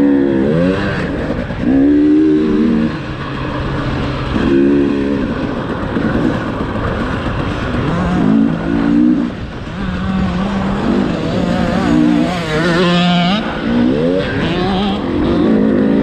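2018 KTM 300 TPI's single-cylinder two-stroke engine being ridden hard, its revs climbing and dropping over and over with the throttle. About halfway through it holds a steady pitch for a few seconds, then revs up sharply again.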